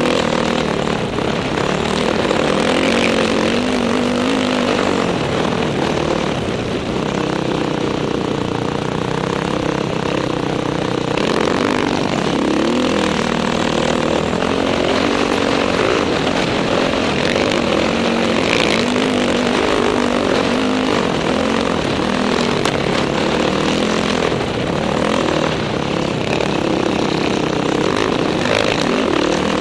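Dirt bike engine running under throttle, its pitch rising and falling as the rider works the throttle, with wind rushing over the helmet-mounted microphone.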